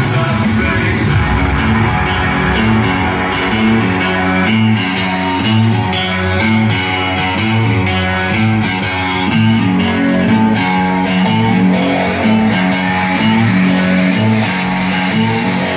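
Music played loud through a Philips FWP2000 party speaker turned up to volume 28: a guitar song with a bass line stepping between notes at an even pulse.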